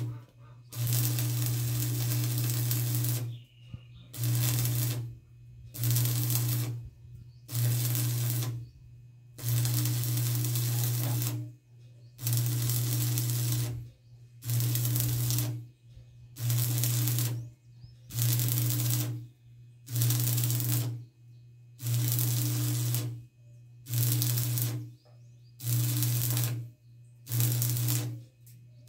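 Electric arc welder laying a series of short welds: about fifteen bursts of crackling hiss over a steady electrical hum, each lasting a second or two, with brief pauses between them.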